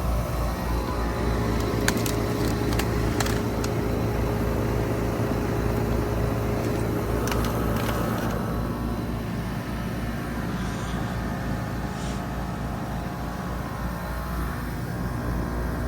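Three-ton Trane XR14 heat pump outdoor unit running: a steady low compressor hum with a faint tone that fades out about halfway through, and a few sharp clicks or ticks in the first half.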